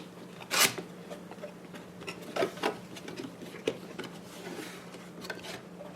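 Cardboard product box being opened and its contents handled: scattered light clicks, taps and scrapes of cardboard and packaging, over a faint steady low hum.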